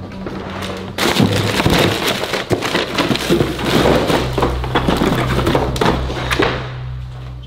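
Rummaging through a kitchen drawer by hand: loud rustling and clattering of the things inside, starting about a second in and stopping shortly before the end. A low, steady bass tone from background music comes in about halfway.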